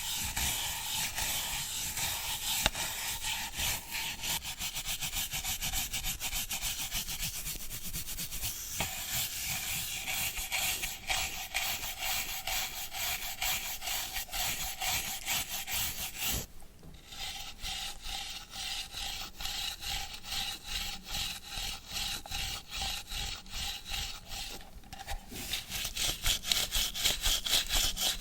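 A brush scrubbing a hard surface in rapid, rhythmic back-and-forth strokes. It pauses briefly twice, and the strokes are louder after the second pause, near the end.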